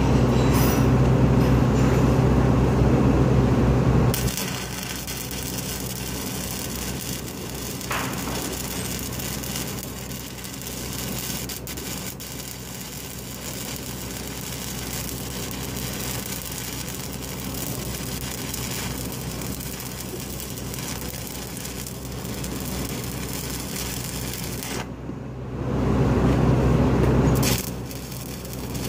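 Stick-welding arc burning steadily at a steel pipe joint, a steady noisy hiss that sets in about four seconds in. A loud low hum fills the first four seconds and returns for about two seconds near the end, just after the arc noise briefly drops out.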